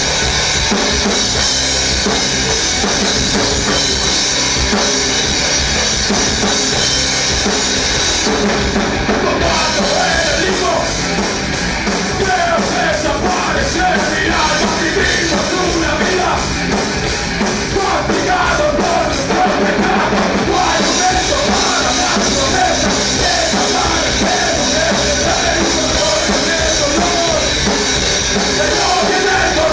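Groove metal band playing live, a drum kit driving under the full band. A wavering melodic line comes in over it about ten seconds in.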